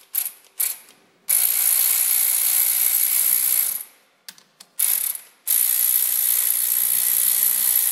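Cordless power ratchet running in two steady bursts of about two and a half seconds each, spinning out the bolts that hold a soft jaw on a lathe chuck. A few short clicks come before and between the bursts.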